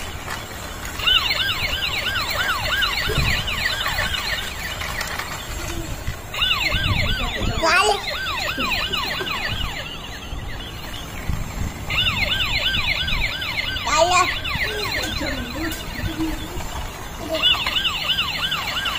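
Electronic siren from a battery-operated toy police car's built-in speaker: a fast warbling wail, about three up-and-down sweeps a second. It comes in bursts of a few seconds, broken by short pauses.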